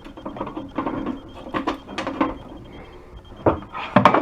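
Keys rattling and metal clicking as the key is put to a Fire-Lite fire alarm control panel's lock and its door is opened, with two louder knocks near the end.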